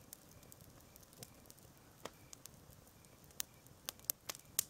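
Small campfire of sticks and twigs crackling quietly, with a few sharp pops, most of them near the end.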